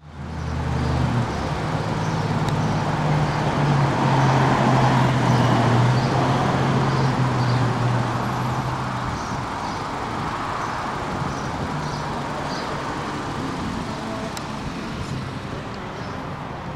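A motor vehicle's engine hums steadily over road traffic noise. The engine hum fades out about nine seconds in, leaving the traffic noise.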